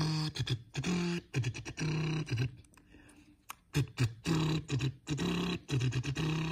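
A man imitating a race-car engine with his mouth: a string of short, buzzing engine-like notes, each held up to about half a second, with brief breaks between them.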